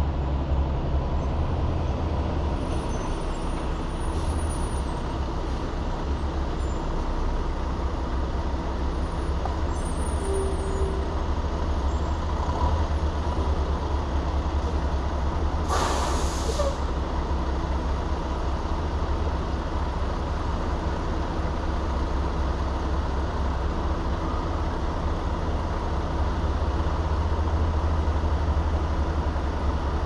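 Steady low rumble of a motor vehicle on the road, with a single short hiss about halfway through.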